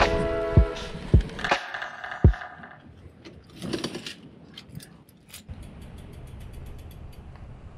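Music with a beat fades out over the first couple of seconds. A key and door lock then rattle and click, and a road bike is wheeled through, its rear freewheel ticking rapidly and evenly.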